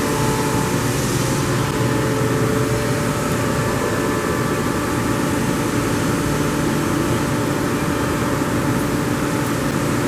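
A 60-inch Giddings & Lewis CNC vertical boring mill running under power: a steady mechanical hum with several held tones and no change in speed.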